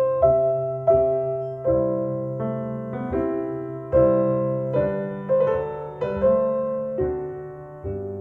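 Recorded piano music played back through Paradigm Persona 7F hi-fi loudspeakers driven by an Accuphase E-380 integrated amplifier: slow, evenly paced notes, about one a second, each struck and fading, over a held low bass note.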